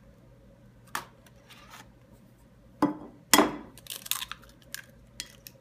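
Egg tapped and cracked against a bowl, with some shell handling: a few sharp taps and cracks, the loudest about three and a half seconds in, followed by a quick cluster of small clicks.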